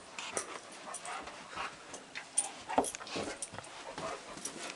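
Dog whimpering in short, excited bursts, with scattered light clicks and scuffles in between.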